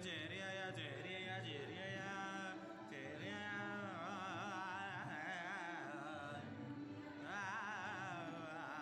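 Chant-like singing: a voice holding long, wavering notes.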